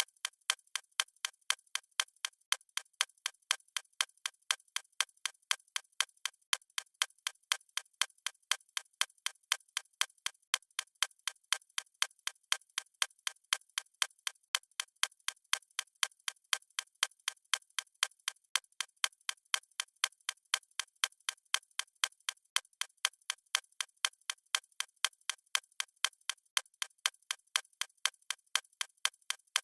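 Mechanical watch ticking at a fast, even rate, several crisp ticks a second.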